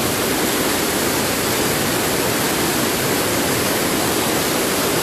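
Steady rushing of water from a waterfall swollen by heavy rain, an even hiss with no changes.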